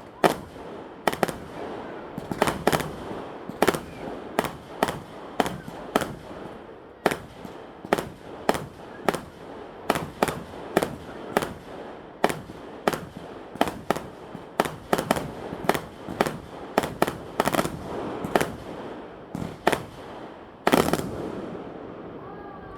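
Aerial fireworks going off in a rapid barrage: sharp bangs one or two a second over a continuous crackle. The loudest, longest burst comes near the end, after which the bangs stop.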